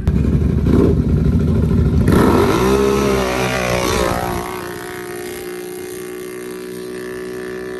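Quad ATV engines launching off the line in a dirt drag race: a loud engine rumble, then the revs climb in pitch about two seconds in. From about halfway through, a steadier, quieter high engine note holds as the quads pull away.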